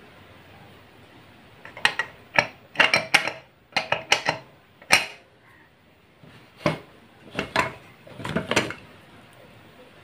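Steel cookware and utensils clinking and knocking: a string of short, sharp metal strikes in small clusters, some with a brief ring, as a pressure cooker and the pans around it are handled.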